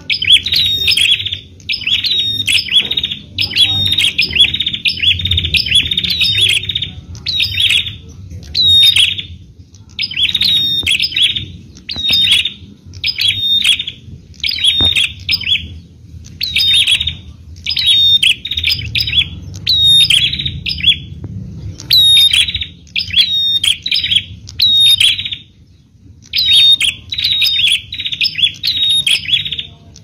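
Prenjak (prinia) calling: quick runs of sharp, high chirps, repeated in bursts about once a second with short pauses between them.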